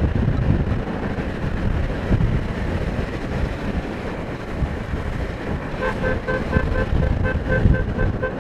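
Rumbling wind and road noise inside a moving car. From about six seconds in, a car horn sounds in rapid short beeps, about three a second.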